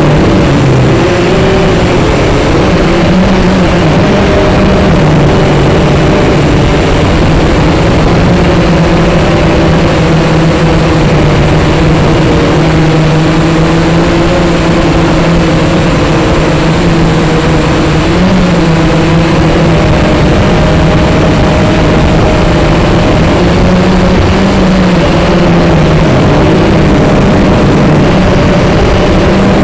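Small drone's electric motors and propellers running, heard close up from its own onboard camera: a loud, steady buzz whose pitch wavers up and down as the motors change speed.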